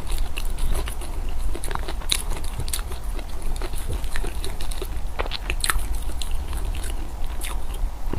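Close-miked chewing and biting of food, with irregular crunches and small wet clicks over a low steady hum.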